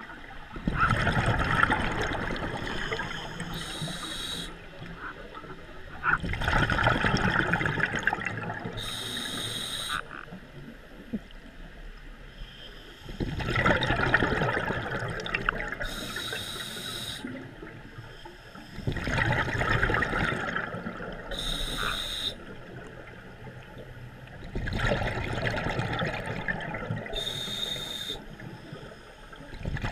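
Scuba diver breathing through a regulator underwater, five breaths about six seconds apart: each a few seconds of rushing, bubbling exhaust followed by a short, sharp hiss.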